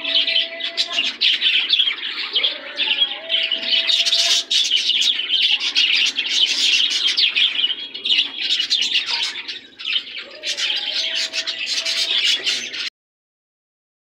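A flock of caged pet birds, budgerigars and small finches, chirping and chattering continuously, with a few low held notes among the chirps; the sound cuts off abruptly near the end.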